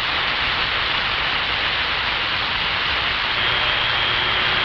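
CB radio receiver hissing with steady open-channel static between transmissions. A faint thin whistle and a low hum come in about two-thirds of the way through.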